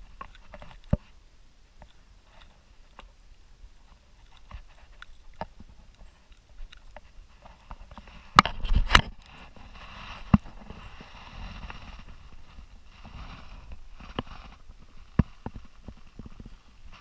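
Handling noises on a plastic sit-on-top kayak while a caught redfish is held up: scattered sharp knocks and clicks, with a louder cluster of thumps about eight seconds in as the fish thrashes in the hand.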